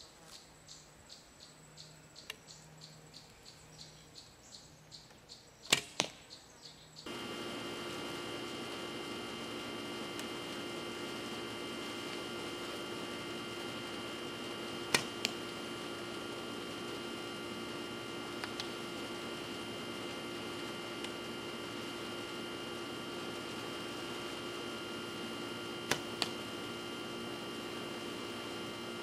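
A homemade PVC centershot recurve bow of about 40 lb draw being shot three times, roughly ten seconds apart: each shot is a sharp snap of the released bowstring followed a fraction of a second later by a second impact, the arrow striking the target. Faint regular ticking underneath gives way to a steady background hum about seven seconds in.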